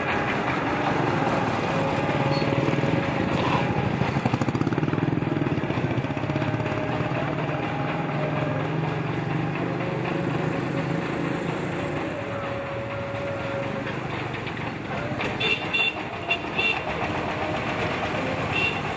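Street traffic: a motor vehicle engine running close by, then several short horn toots in quick succession near the end as a bus draws up.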